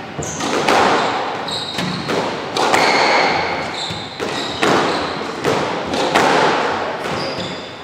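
Squash rally: the ball cracking off rackets and the court walls, a sharp hit every half second to a second, each echoing in the court. Short high squeaks of sneakers on the wooden floor come between the hits.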